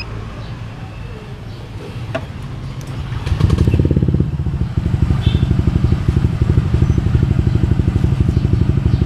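Honda Click V2 scooter's single-cylinder engine idling through an aftermarket JVT V3 exhaust, which becomes much louder and more pulsing about three seconds in, with a few clicks just before.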